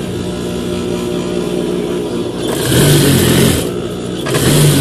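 Industrial lockstitch sewing machine running: a steady motor hum, broken by two louder runs of fast stitching, one about two and a half seconds in and another near the end.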